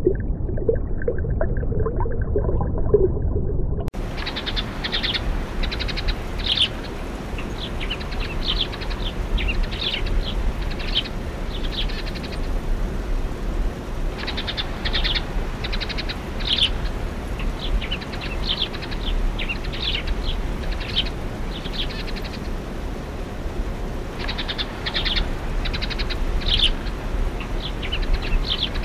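Low, wavering whale-like calls for about the first four seconds. Then, after an abrupt change, house sparrows chirp in quick clusters with short pauses between them, over a steady low background rumble.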